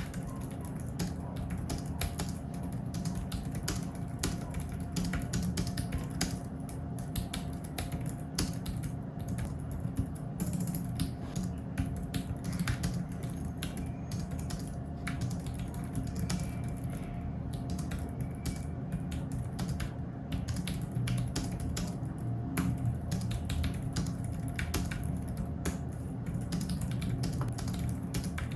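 Logitech K380 keyboard being typed on continuously: a steady stream of soft, quick key clicks from its low-profile scissor-switch keys, with a faint steady hum underneath.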